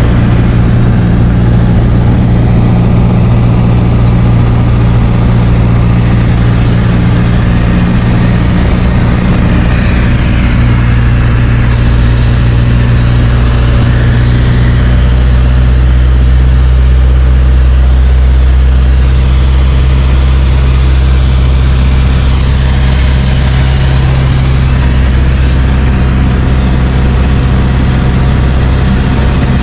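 Light aircraft's piston engine running steadily, heard from inside the cabin, with its deep drone strengthening a little about halfway through.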